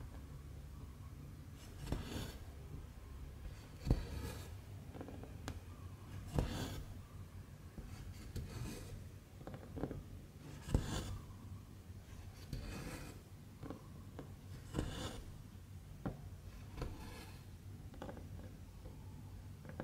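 Hand cross-stitching on 11-count stamped cross-stitch fabric: a needle pokes through and thread is drawn through the cloth in short rasping pulls, one about every two seconds, with a low steady hum underneath.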